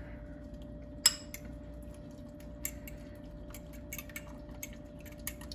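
Metal fork beating eggs with tomato and cilantro in a bowl: irregular clicks and taps of the fork against the bowl, the sharpest about a second in, over a faint steady hum.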